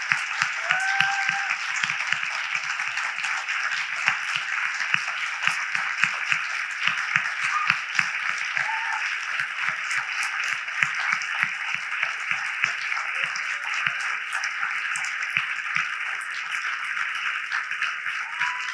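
A large audience applauding, a dense, steady patter of many hands clapping, with a few brief calls from the crowd.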